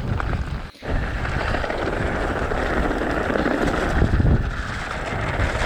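Wind buffeting the microphone of a camera riding on a mountain bike, over a steady hiss of tyres rolling on a wet road. The sound cuts out briefly just under a second in.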